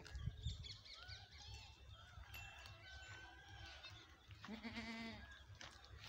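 A goat bleats once, a short wavering call lasting under a second about two-thirds of the way through, over faint high chirping.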